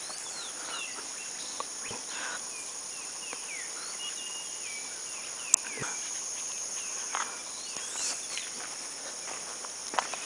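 Steady high-pitched insect drone, with many short bird chirps and whistles over it and a few footsteps and clicks, one sharp click about five and a half seconds in.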